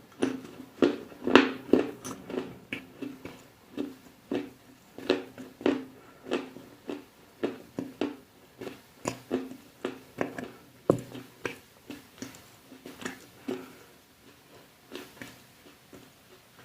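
Close-miked crunching bites and chewing of something hard and brittle, a crisp crunch about twice a second, thinning out and growing quieter toward the end.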